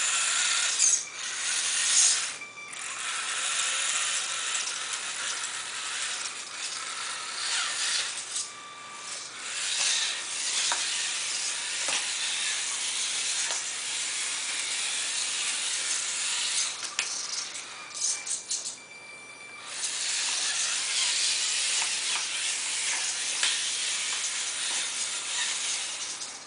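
Tiny electric motor and gearbox of a 1/32-scale mini 4WD RC truck whirring in a high, hissy buzz as it drives, cutting out briefly a few times.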